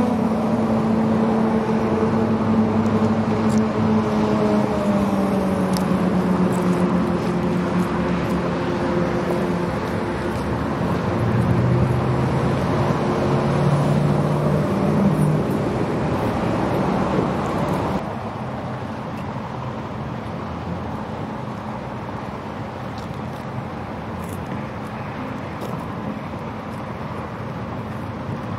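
Freeway traffic: vehicles passing, their engine and tyre sound falling in pitch as they go by, over a steady road hum. About eighteen seconds in the sound drops abruptly to a quieter, steady traffic hum.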